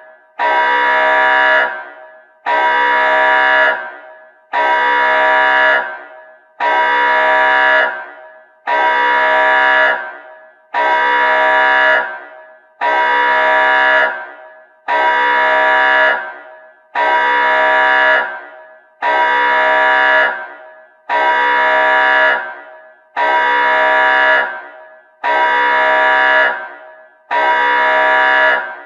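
Nuclear alarm horn sounding in repeated blasts, about one every two seconds. Each blast is a loud, steady, buzzy tone that starts sharply and fades out before the next.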